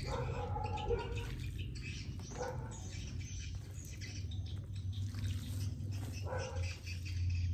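Animal calls, three short ones, over a steady low hum.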